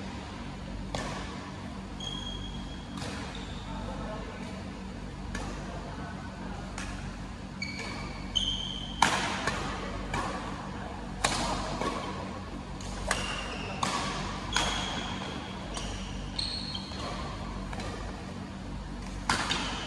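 Badminton rackets striking a shuttlecock in a doubles rally: sharp smacks at irregular intervals, coming faster and harder in the second half, the loudest about nine seconds in. Short high squeaks of court shoes on the floor come between the strokes.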